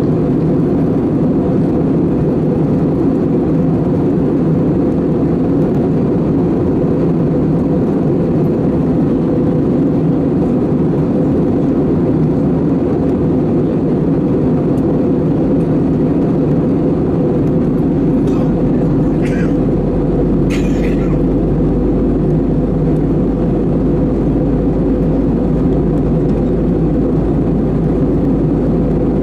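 Steady cabin noise inside an Airbus A320-214 in flight: the CFM56 turbofans and rushing airflow heard from a window seat, with a steady hum in it. A deeper low rumble joins about two-thirds of the way through.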